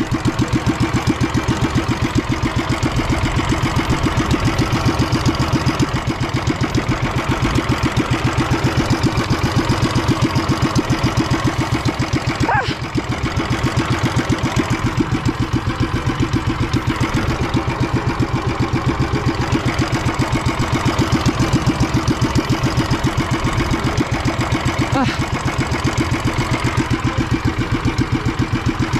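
Small engine of a motorized banca running steadily under way, with a fast, even chugging beat. A wooden part of the drive has come loose and is being held down by foot so it does not fly off as it turns.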